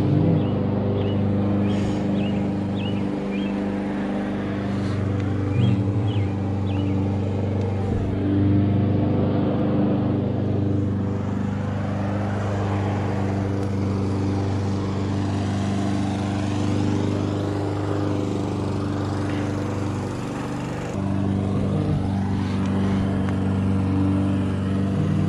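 BMW E36 car engine idling steadily.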